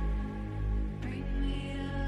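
Background music of sustained, held chords, moving to a new chord about halfway through.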